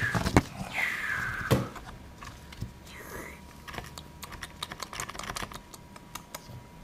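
Rapid clicks, taps and rustles of a plastic toy dinosaur being handled and moved about on dry moss and sawdust close to the microphone, busiest in the first second and a half. Two short, high, falling squeaks come near the start and about a second in.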